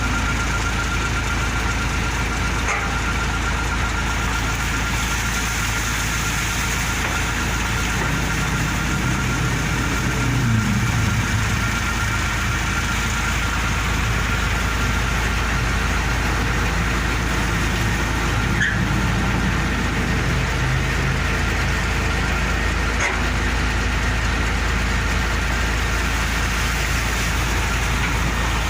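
Isuzu Giga FVZ concrete mixer truck's diesel engine running steadily while its hydraulic main pump is tested, with a thin steady whine above the engine hum. The pitch shifts a little twice, and there are a few faint clicks.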